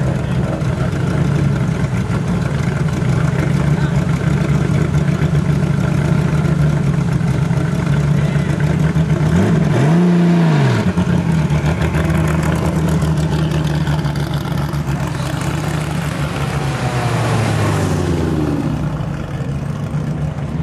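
Race car engine idling in a Porsche 911-bodied hillclimb car, given one quick throttle blip about halfway through. Near the end its note drops and fades as the car moves off.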